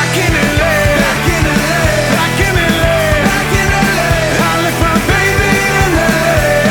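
Rock band music with a steady drum beat and a melodic lead line that bends in pitch over it.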